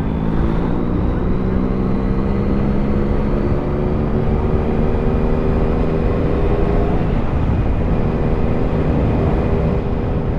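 Motorcycle engine running under way at a steady cruise with road and wind noise. The engine note rises a little over the first few seconds, then holds steady.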